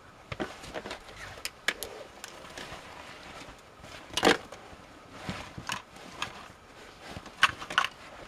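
Gear being unpacked from a plastic sled: scattered rustles, knocks and clicks of bags and items being handled, with a louder knock about four seconds in and two sharp clicks near the end.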